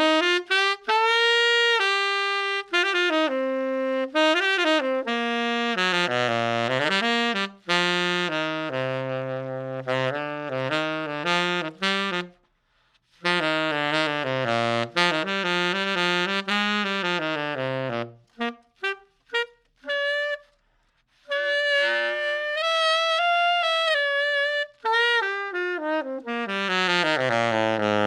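Saxophone played through the prototype Desert Blush v0.9 mouthpiece, as a sound demonstration. It plays melodic jazz-style phrases with pitch slides and quick runs that reach down into the low register, with short detached notes around two-thirds of the way through and two brief pauses.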